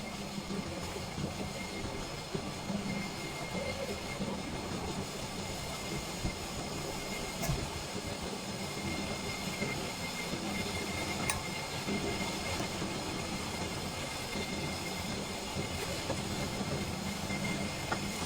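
Lathe running steadily while skimming about 0.1 mm off a piston's crown, with a faint thin high whine over an even machine noise.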